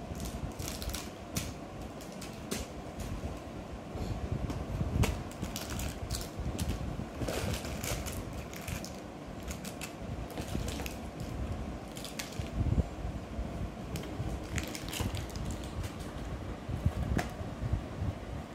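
Foil-wrapped chocolates crinkling and tapping as a toddler handles them and tips them out of a plastic tub, in irregular crinkles and small knocks.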